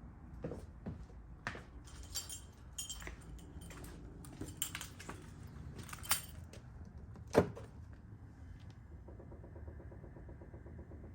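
Scattered clicks and knocks, the loudest a single knock about seven seconds in. From about nine seconds in, a faint rapid repetitive clicking starts: the 2017 Chevy Bolt's brake booster clicking, a fault in the car.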